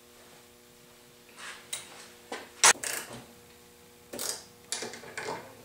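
Metal clinks and clicks of a wrench and engine parts being handled on a workbench, an irregular run of short knocks starting about a second and a half in, the sharpest one a little before the middle.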